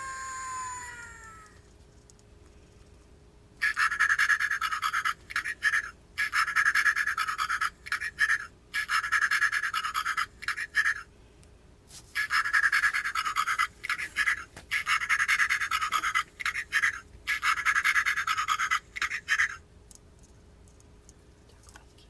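Hexbug Lil Nature Babies toy animal playing sounds from its small speaker: the tail of a falling, meow-like cry, then hissy, tinny breathing noises in a slow repeating pattern of a long breath and a short one about every three seconds. This is the toy's sleep mode, set off by laying it down; it stops near the end.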